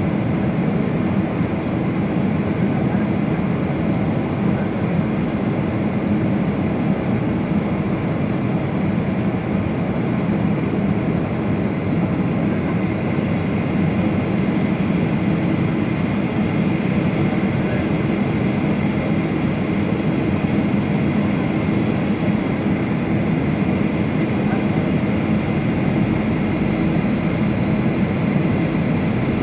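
Steady drone of a jet airliner's engines and rushing airflow, heard inside the passenger cabin from a window seat near the engine while the aircraft descends.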